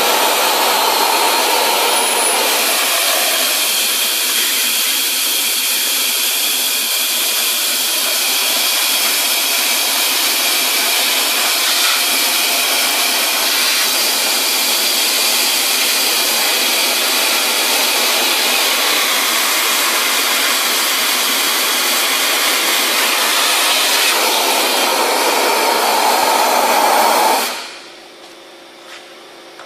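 Compressed-air-driven, explosion-proof wet-and-dry vacuum cleaner running with a loud, steady rush of air as its nozzle sucks oily water out of a tub. It is shut off about 27 seconds in and the rush dies away quickly.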